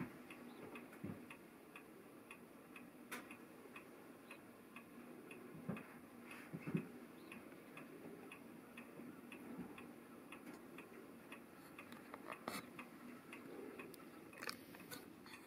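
Faint, even ticking that runs on steadily, with a few louder clicks now and then.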